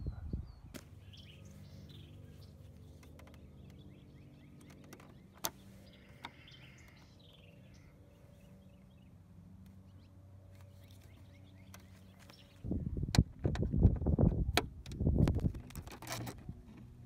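Quiet outdoor ambience with birds chirping, a faint steady hum and a few sharp clicks as a flathead screwdriver pries at the scooter's plastic horn-cover badge. About thirteen seconds in, loud low buffeting sets in for several seconds, mixed with light clicks from a Torx T30 bit on a 1/4-inch ratchet working the horn-cover screw.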